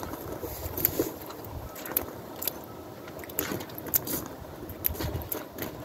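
Scattered sharp clicks and ticks, about one to two a second and unevenly spaced, from a small ice-fishing rod and spinning reel being handled, over a low rumble.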